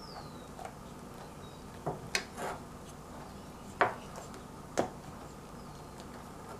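A metal spoon knocking and scraping against a stainless steel saucepan as dollops of whipped cream are spooned into melted chocolate: five short knocks, three close together about two seconds in, then two more about a second apart.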